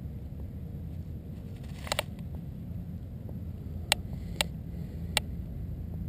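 Steady low rumble, with a quick double click about two seconds in and three single sharp clicks later on.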